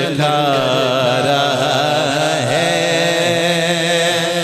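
A man's voice singing a naat into a microphone in long, drawn-out melodic lines with a wavering pitch, over a steady low drone.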